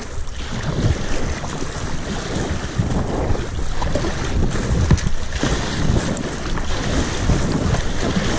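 Wind buffeting the microphone over water sloshing and splashing against a kayak's bow as it is paddled through choppy water, with irregular surges as the strokes and waves hit.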